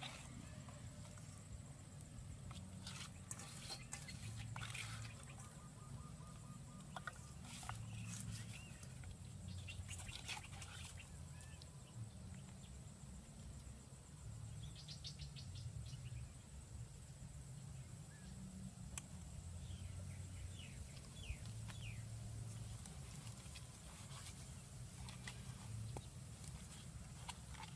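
Faint outdoor ambience: a steady low rumble of wind on the microphone, scattered light clicks and taps as cooked chicken is pulled apart by hand in a steel bowl, and a few short bird chirps.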